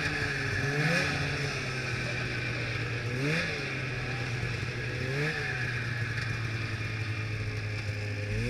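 2002 Blade Striker 600 snowmobile's two-stroke engine running at low speed, with short throttle blips about a second, three seconds and five seconds in, each one rising in pitch and dropping back to the steady low note.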